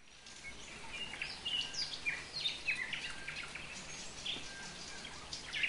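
Several birds chirping and calling in quick, overlapping short notes over a steady hiss of falling rain.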